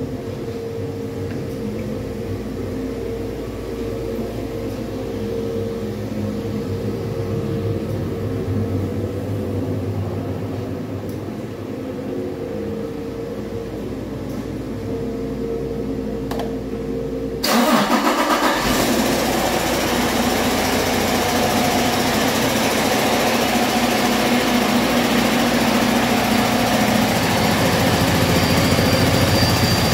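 2020 Detroit Diesel DD16 inline-six diesel running steadily on a test run. About two-thirds of the way in it turns abruptly louder, with a hissing rush over the engine note, and stays that loud.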